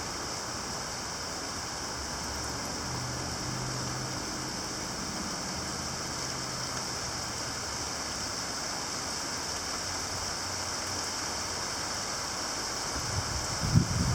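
Heavy rain shower pouring down steadily, an even hiss of rainfall with no wind behind it.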